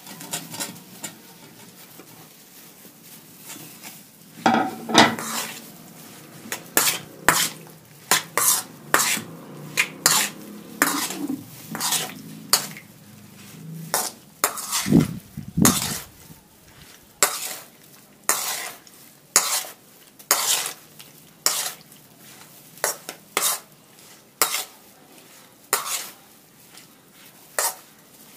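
Metal spoon clinking and scraping against a stainless steel bowl as bread pieces are tossed and mixed in it, with irregular sharp clinks about one or two a second after the first few seconds. A heavier dull knock comes about halfway through.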